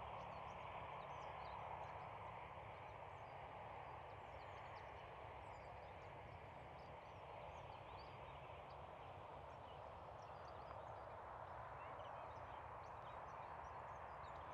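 Faint countryside ambience: a steady low rush of air with many small, high bird chirps scattered over it.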